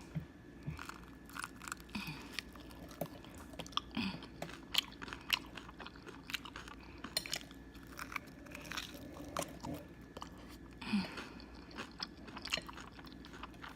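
Close-up biting and chewing of crispy cornflake-coated chicken wings: irregular crunches, each crack short and sharp.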